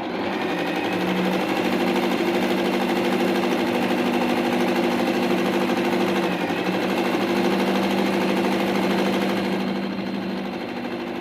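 Singer electric sewing machine running continuously as it stitches fabric, a steady motor and needle-mechanism hum that starts abruptly and eases off slightly near the end.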